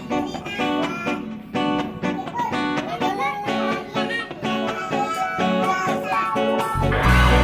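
Background music: a melody of separate plucked notes, joined about seven seconds in by a fuller accompaniment with deep bass.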